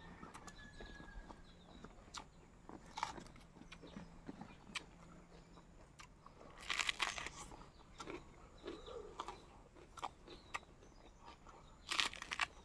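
Close-up eating sounds: faint chewing with small clicks, and louder crunchy bites about seven seconds in and again near the end.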